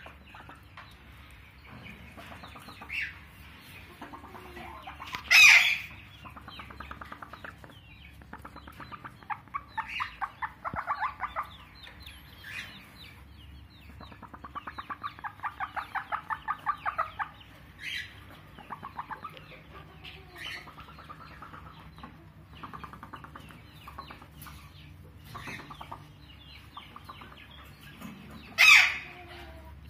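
Hen clucking in runs of rapid, evenly spaced clucks, with scattered single calls and two much louder, harsher calls, one about five seconds in and one near the end. She is on her nest, about to lay an egg.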